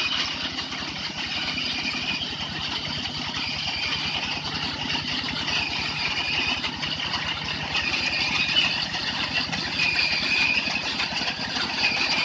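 Rice combine harvester running steadily: a fast, even engine pulse under a higher whirring from the machine that swells and dips now and then.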